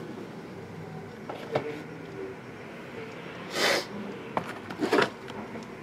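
Sealed trading-card boxes and their packaging handled on a table: a few light taps and knocks, with one short rustle about three and a half seconds in.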